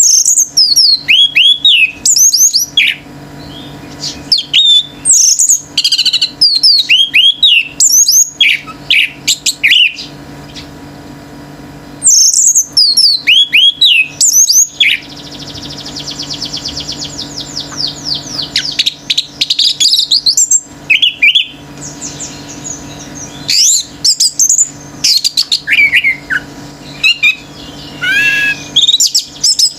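Orange-headed thrush singing loudly: bursts of quick, downward-sweeping whistled notes with short pauses between phrases, and a long rapid trill about sixteen seconds in. A faint steady hum runs underneath.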